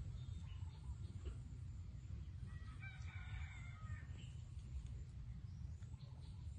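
A rooster crowing once, faint and distant, about three seconds in, over a steady low rumble.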